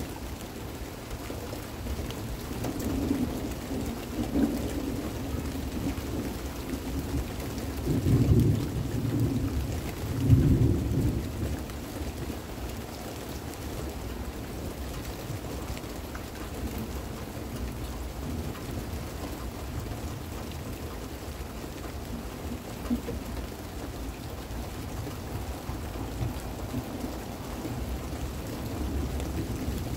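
Thunder rolling through steady rain, with the loudest rumbles about eight and ten seconds in.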